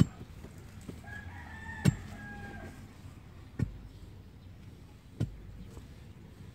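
A steel digging bar is driven into the soil with a sharp thud about every second and a half, four strikes, loosening the earth around purple yam tubers. A rooster crows once about a second in, a single call lasting nearly two seconds.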